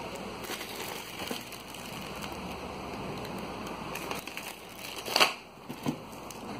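Plastic shrink-wrap crinkling and rustling as wrapped packages are handled and shifted in a cardboard box, with a couple of louder sharp sounds about five seconds in.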